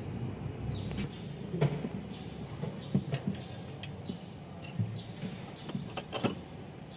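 Sparse metallic clicks and clinks from hands and tools working on the open valvetrain of a Mitsubishi 4N15 cylinder head (camshafts and rocker arms) during a valve clearance adjustment.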